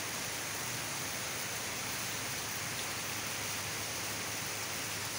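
Steady rain falling on palms and leafy trees, an even hiss that does not let up.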